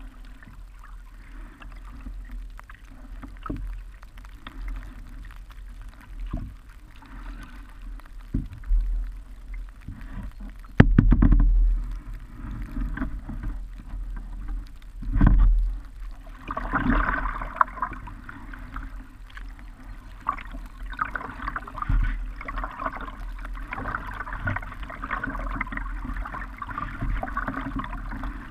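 Kayak paddling on a river: paddle strokes, water splashing and dripping against the hull, and irregular thumps on the boat, the loudest about eleven and fifteen seconds in. From about halfway, a steady rush of moving water.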